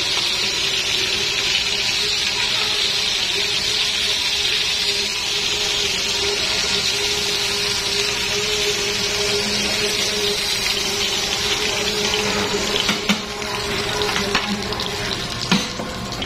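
Tuna steaks sizzling in hot oil in a skillet, a steady hiss that eases after about twelve seconds as the fish is lifted out. A few sharp clinks of metal tongs near the end.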